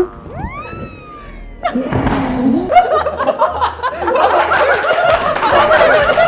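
Several people laughing hard together, many voices overlapping, bursting in about two seconds in and going on loudly. Before that come a couple of rising-and-falling sliding tones.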